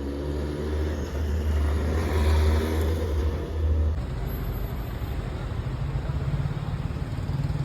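Steady low rumble of city street traffic, with the background changing abruptly about four seconds in.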